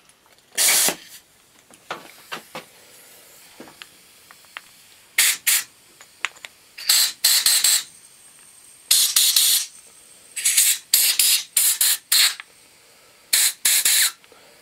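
A compressed-air blow gun blowing out a small-engine carburetor's passages after carb cleaner has gone through them, in about a dozen short, loud blasts of hiss. There is a single blast near the start, and the rest come in quick clusters through the second half.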